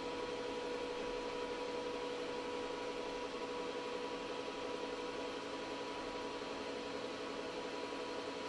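Steady background hum with a faint higher tone above it, over an even hiss: room tone, with no other sound standing out.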